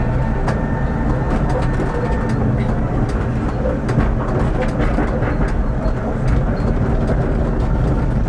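Tram running along street track, heard from on board: a steady low hum with many irregular clicks and knocks as the wheels pass over rail joints and points.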